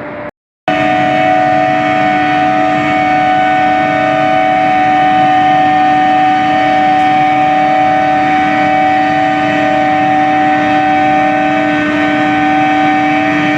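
Steel billet induction heating furnace running: a loud, steady industrial hum and whine made of several fixed tones over a hiss. It cuts in after a brief gap near the start and holds unchanged throughout.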